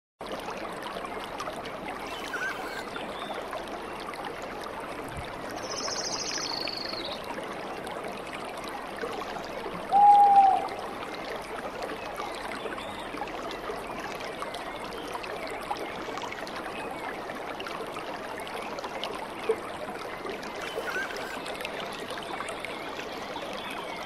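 Water cascading steadily over rock ledges into a pool, a small waterfall's even rushing. About ten seconds in a brief loud call with a pitch that rises and falls cuts through, and a few faint high chirps come and go.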